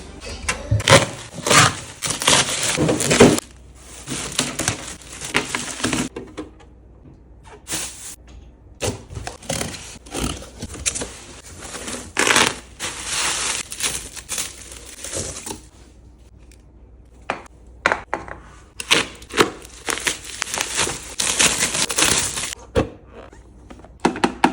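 Plastic packaging being crinkled and torn open, with clicks and knocks of hard plastic, in irregular bursts with short pauses, as refrigerator storage containers are unboxed by hand.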